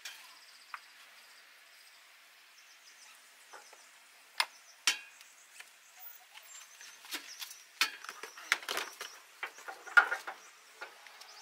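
Faint, scattered sharp clicks and knocks of ratchet tie-down straps being handled and tightened on a quad in a pickup bed. The clicks grow more frequent in the second half, the loudest one near the end.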